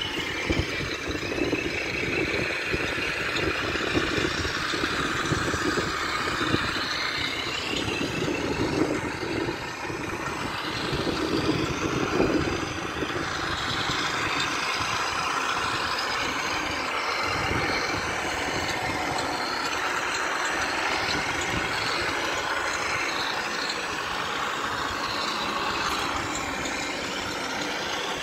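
1/10-scale radio-controlled trucks crawling over dirt: a steady truck-engine-like running sound from the scale vehicles, with a few louder swells around the middle.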